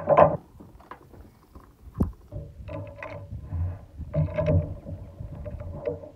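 Handling noise at a shooting bench: a sharp click about two seconds in, then scattered small clicks and rustling as cartridges are taken from a plastic ammo box and the bolt-action rifle is handled ahead of a shot.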